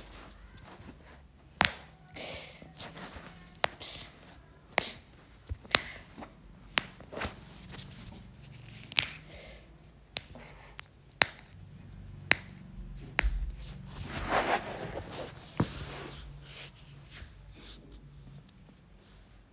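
A masseuse's hands slapping and tapping a client's head and shoulders during a head massage: about a dozen sharp smacks, irregularly spaced about a second apart, with a longer stretch of hands rubbing over cloth and hair about fourteen seconds in.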